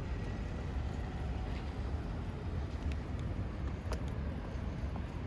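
City street ambience: a steady low rumble of passing traffic, with a couple of faint clicks about three and four seconds in.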